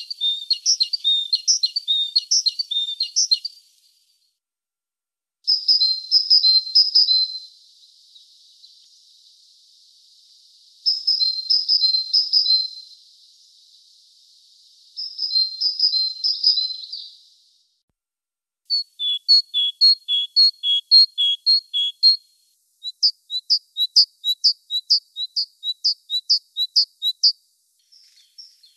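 Great tit singing: about six songs of a few seconds each, every one a fast run of repeated high two-note phrases, with short pauses between songs.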